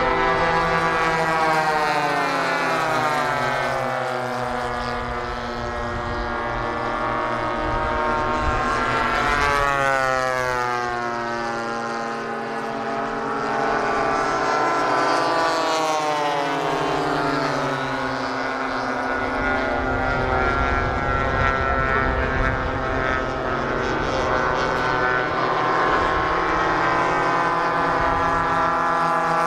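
Several radio-controlled model warbirds flying past with their propeller engines running; the engine pitch sweeps down as each plane passes and climbs again as the next one approaches, with several engines overlapping.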